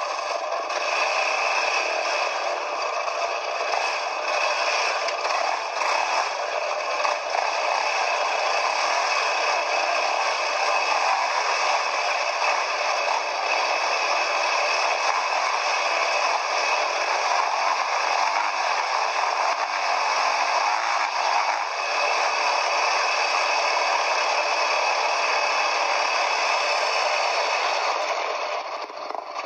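Quad bike riding over rough ground: a continuous clattering, rattling and scraping noise that stays steady and eases off just before the end.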